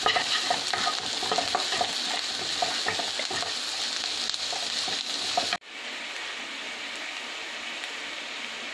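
Chopped onions frying in butter in a nonstick kadai, sizzling as a wooden spatula stirs them against the pan, sautéing toward golden brown. About five and a half seconds in, the sound drops suddenly to a quieter, steady sizzle with no stirring.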